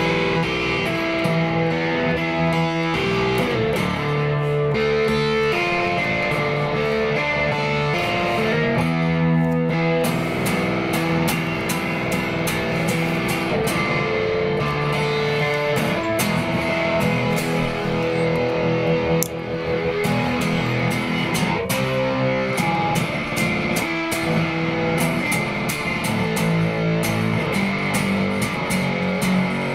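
Electric guitar played through a chain of Fairfield Circuitry effects pedals: sustained notes and chords with frequent picked and strummed attacks.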